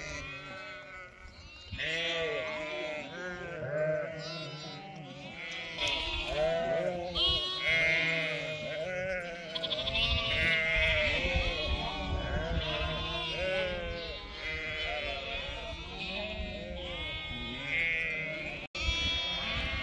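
A large flock of sheep and lambs bleating continuously, many calls overlapping each other. A low rumble runs underneath from about halfway through.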